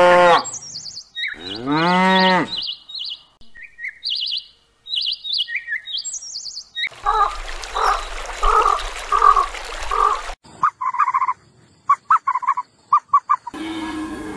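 Cattle mooing: one moo that rises and then falls in pitch, with small bird chirps around it. Later comes a run of about five evenly spaced calls, then a few short sharp calls, and near the end a koala begins a low, rough bellow.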